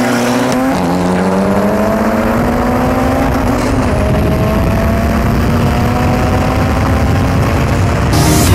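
Car engine at full throttle in a street race: the revs climb, drop with a quick gear change under a second in, then rise slowly through the next gear. Heavy wind and road noise runs underneath.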